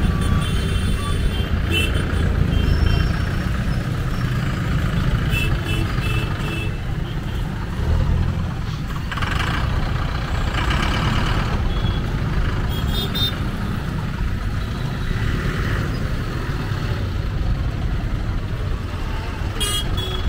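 Train running past the level crossing: a steady, heavy rumble of wheels on the rails, with brief high tones now and then.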